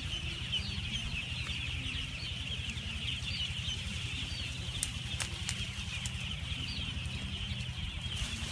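A large flock of ducklings calling all at once: a dense, continuous chatter of high peeps, over a steady low hum, with a few sharp clicks about five seconds in.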